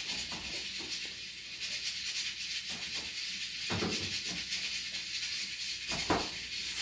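Pressure rice cooker hissing steadily as it cooks rice, with a couple of soft knocks about four and six seconds in.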